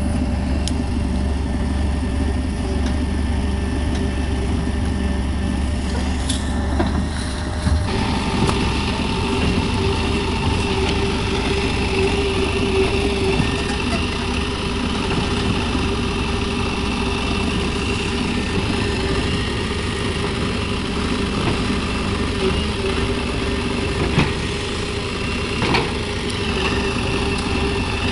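Diesel engine of a JCB 3DX backhoe loader running steadily while the backhoe digs, its tone changing about eight seconds in, with a few short knocks of the bucket working near the end.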